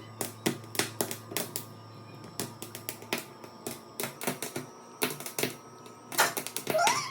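Irregular sharp crackles and pops: an ear of corn roasting over an open flame, its kernels crackling. A short rising cry sounds near the end.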